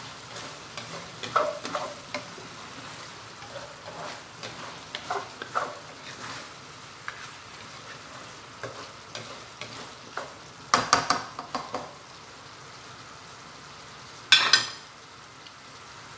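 A spatula stirring and scraping chicken livers in a non-stick wok over a steady sizzle of coconut-milk sauce reducing down. The scraping comes in short clusters, and two sharp knocks near the end are the loudest sounds.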